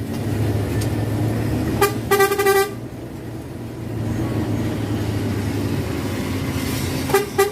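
Bus horn sounding over the steady drone of the bus engine: a short blip about two seconds in, then a held single-pitched note of about half a second, and another short blast near the end.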